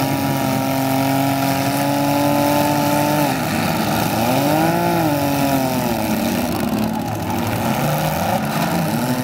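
Demolition derby compact cars' engines running hard, one held at high revs, then dropping and revving up and back down about halfway through.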